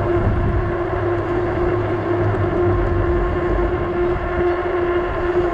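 Ecotric 48 V fat-tire e-bike riding at a steady speed: a steady whine from the hub motor and fat tires rolling on pavement, over a low rumble.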